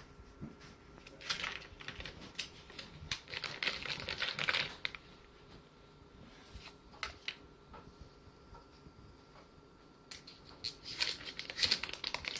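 Butter sticks being unwrapped and added to the pan: paper wrappers crinkling, with light clicks and taps, in several short bursts with quieter gaps between.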